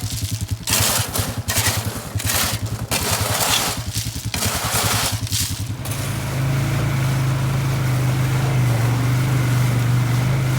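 Polaris Sportsman 570 ATV engine running at low trail speed, with a series of loud rushing, splashing bursts about one or two a second as it drives through standing water and mud. About six seconds in the splashing stops and the engine runs on steadily, picking up a little speed.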